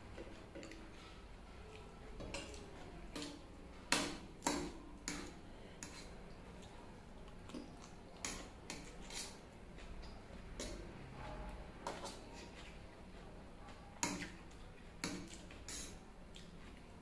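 Metal fork clinking and scraping against a steel plate as noodles are gathered and lifted, in a dozen or so sharp, irregular clinks. The loudest come about four seconds in and again near fourteen seconds.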